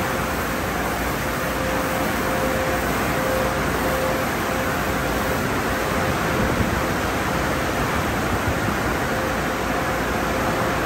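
Car-wash tunnel equipment running: high-pressure water spray hissing and cloth wrap brushes spinning against a car, a steady wash of noise with a faint steady whine under it.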